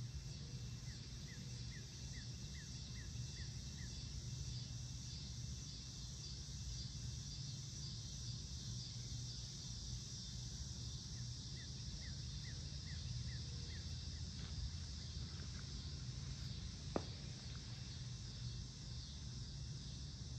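Evening outdoor ambience: a steady hum of insects over a low rumble. A bird gives two short runs of quick repeated chirps, one near the start and one about halfway, and there is a single sharp click late on.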